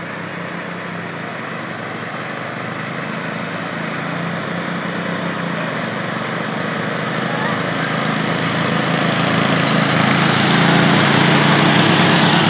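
Riding lawnmower engine running steadily, growing louder throughout.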